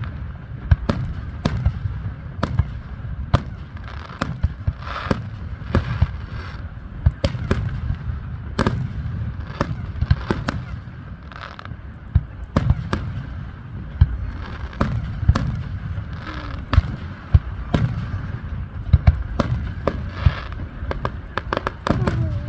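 Aerial fireworks bursting: a continuous irregular run of sharp bangs, one to three a second, over a low rolling rumble.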